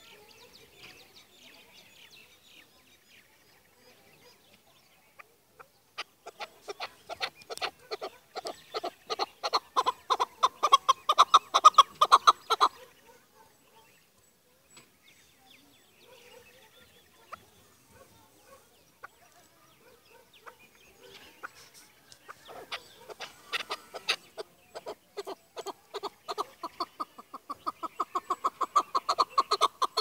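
Chukar partridge calling: two long runs of rapid, repeated clucking notes, each building in loudness. The first starts a few seconds in and lasts about six seconds. The second starts past the middle and is still going at the end.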